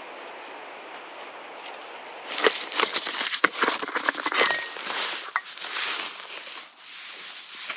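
Crinkling and rustling of camping gear being handled, a dense run of irregular crackles that starts about two seconds in after a steady hiss and tapers off near the end.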